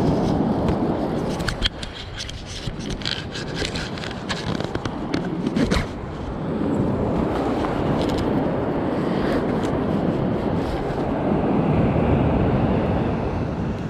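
Wind buffeting the microphone, with a rapid run of sharp crackles and clicks over the first half that then give way to the wind alone.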